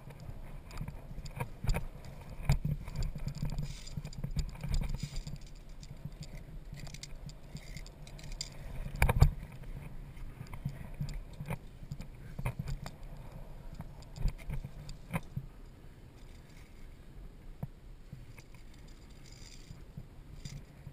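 Via ferrata climbing gear being handled: metal carabiners clinking and scraping along the steel safety cable and against rock, in irregular clicks and knocks, the loudest about nine seconds in, over a steady low rumble.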